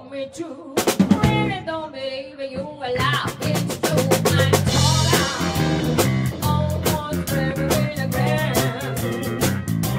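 Live blues-rock band: a female singer's amplified voice over electric guitar and drum kit. The opening is sparser, with the held, wavering vocal line and a few drum hits. About three seconds in the full band kicks in with a steady drumbeat.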